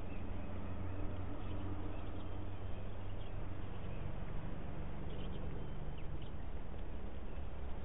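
Steady background hiss with a low hum, with a few short, faint high bird chirps about five to six seconds in.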